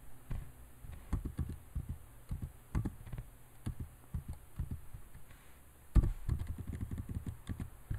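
Computer keyboard typing: irregular light key clicks, with a louder knock about six seconds in.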